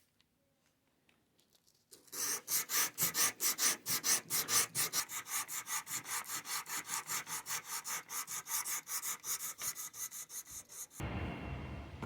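Sandpaper rubbed by hand along a steel knife blade in fast, even back-and-forth strokes, about six a second, the hand sanding that brings a blade to its finish. The strokes start about two seconds in and stop near the end, giving way to a steady lower hiss.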